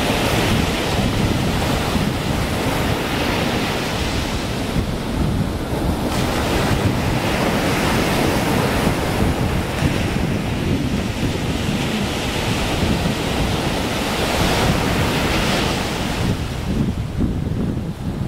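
Sea surf washing in, with wind buffeting the microphone; the noise swells and eases every few seconds and thins near the end.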